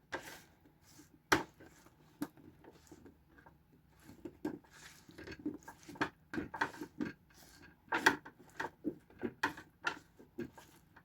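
Kitchen clatter: a string of irregular knocks and taps of utensils on the counter and cutting board. A single sharp knock comes about a second in, and the taps become frequent, a few a second, from about four seconds on.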